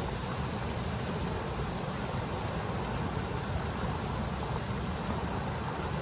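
Soda Springs geyser in full eruption: the steady rushing hiss of its water jet, with a low rumble underneath.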